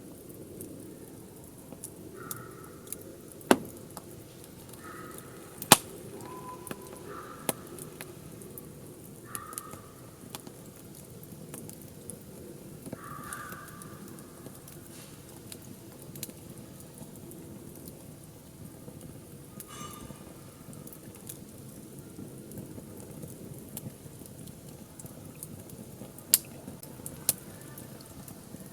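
Wood fire burning in a fire pit: a steady low rustle of flames with small crackles and several sharp pops of the wood, the loudest a few seconds in and again near the end. A few short calls sound faintly in the background.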